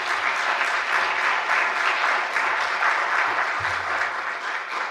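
Audience applauding with dense, steady clapping that begins to die down near the end.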